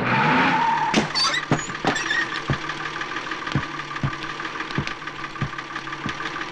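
A bus pulling in, with a brief high brake squeal in the first second, then its engine running at idle under a regular ticking about twice a second.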